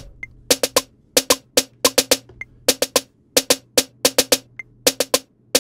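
Snare-type drum sample from a Maschine drum kit playing a one-bar fill of quick, uneven hits that repeats about every two seconds as the pattern loops. It is being recorded in from the pads, so hits are added to the pattern as it goes.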